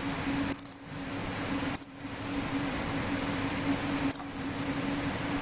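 Steady fan hum and hiss with a low steady drone, broken by a few mouse clicks: a quick cluster just under a second in, then single clicks near two and four seconds.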